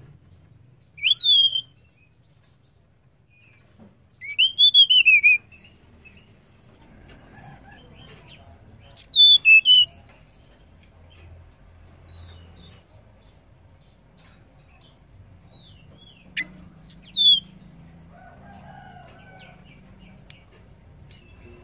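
Female blue flycatcher (tledekan) calling: four whistled phrases with pauses between them. The first is a short note about a second in, the second an arched note that rises and falls, and the last two, near the middle and towards the end, are quick runs of notes falling in pitch.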